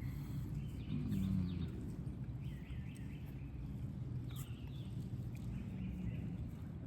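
Outdoor ambience: a steady low rumble of wind on the microphone, with a few faint short high-pitched sounds.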